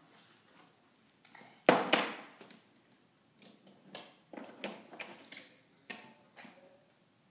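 Wooden toy train pieces knocking and clattering against wooden track and a wooden play table as a toddler handles them. A loud clatter comes about two seconds in, then a run of lighter clacks and taps.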